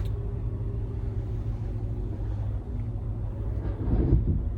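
Steady low engine hum at a constant pitch, heard from inside a car, swelling briefly about four seconds in.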